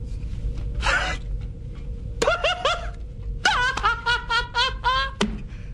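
A man laughing heartily. A breathy exhale comes first, then a few short 'ha' syllables, then a long, fast run of laughter, with a click near the end.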